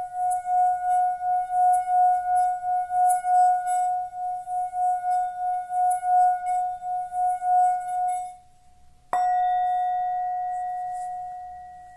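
Small 10 cm bronze-and-copper Tibetan singing bowl rubbed around the rim with its stick, singing one steady tone with a regular wavering pulse and a faint scratch of the stick. The rubbing stops about eight seconds in, and a second later the bowl is struck once and rings out, slowly fading.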